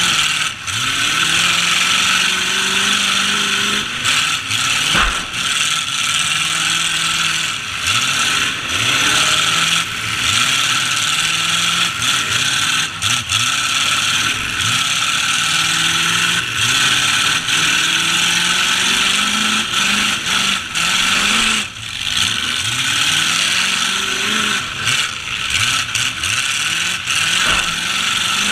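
Demolition-derby trucks with open exhausts, their engines revving up and down over and over, with a few sharp bangs of collisions, one about five seconds in and several around twenty-two seconds.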